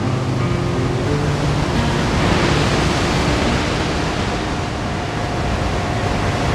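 Huge ocean waves breaking: a steady, dense rush of surf that swells about two seconds in, with guitar music fading out at the start.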